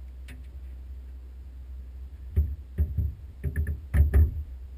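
A quick series of knocks and thumps, about seven in two seconds, starting about halfway through over a steady low rumble.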